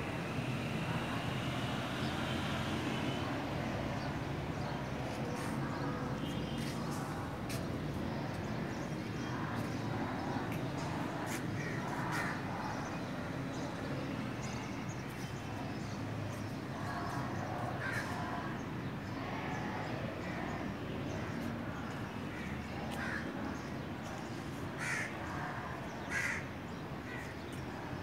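Crows cawing on and off over a steady outdoor background noise, with a few clearer calls near the end.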